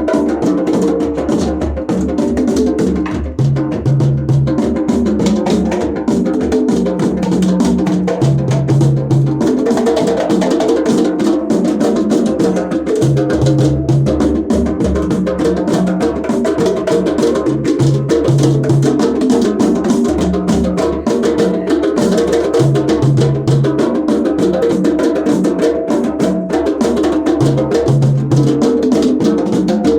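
Percussion music: fast, dense drum strokes over sustained low pitched notes that shift every second or so.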